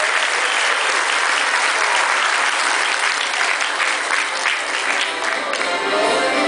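Audience applauding and clapping steadily in a large room. Near the end, music begins to play under the clapping.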